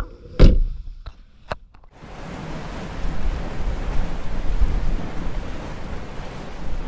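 A single loud thump about half a second in, then a couple of faint clicks; from about two seconds a steady, even rushing noise like wind or surf continues.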